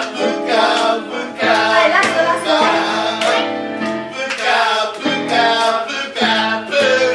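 A woman singing a soul song live into a handheld microphone, her voice sliding between notes over sustained instrumental backing.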